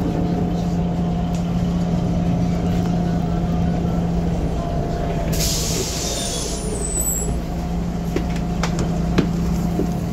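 City bus heard from inside: a steady running drone with a low held hum, then about five seconds in a hiss of released compressed air from the brakes or door for about a second, followed by a few sharp clicks and knocks.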